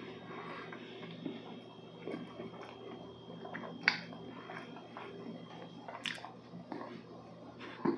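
Close-miked chewing of soft sponge roll cake, with moist mouth sounds and a few sharp mouth clicks. A new bite into the cake comes late on.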